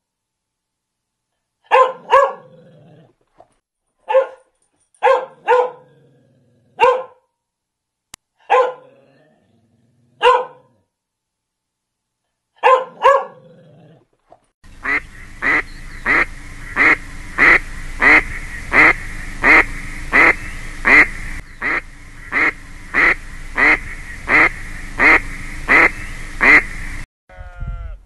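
A dog barking, single and double barks every second or two with pauses between. About halfway through, this gives way to a duck quacking in a steady series, about two quacks a second over a constant hiss, which stops just before the end.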